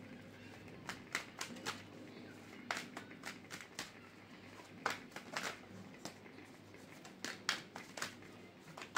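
Light, sharp clicks and taps at irregular intervals, often two or three close together, over a faint low hum.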